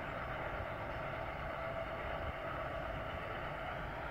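Distant freight train moving away down the line: a steady rumble of wheels on the rails.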